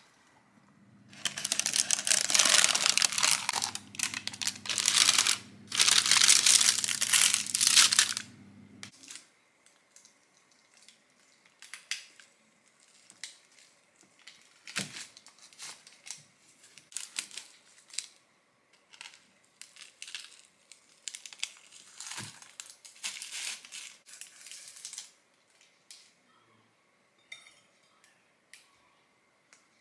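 Loud crinkling rustle for several seconds, then quieter, scattered crunches and paper crinkles as a large kitchen knife cuts a baked date and oat slice on baking paper over a wooden board.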